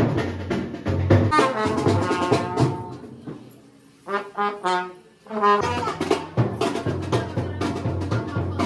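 Brass band music: horns playing a melody over a drum beat. The drums drop out for a couple of seconds in the middle, and the music cuts off suddenly at the end.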